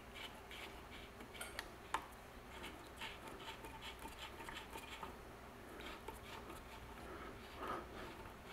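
Faint, small metal ticks and clicks, about three or four a second, as the waterblock's hold-down thumb nuts are turned down by hand onto their threaded mounting standoffs, with one sharper click about two seconds in.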